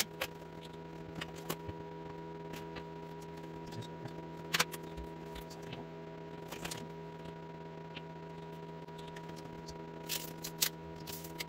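Occasional light clicks and taps of small hard objects being handled, the loudest about four and a half seconds in and a few close together near the end, over a steady low hum.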